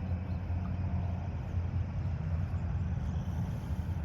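Engine idling with a steady low rumble.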